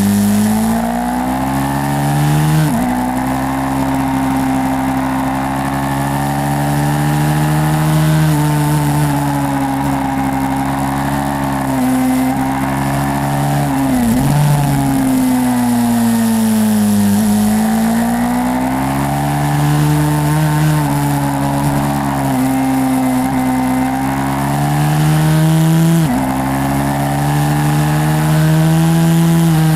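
YCF 150 SM pit bike's single-cylinder four-stroke engine being ridden, its pitch rising and falling continuously as the throttle is worked, with a few sudden breaks in pitch.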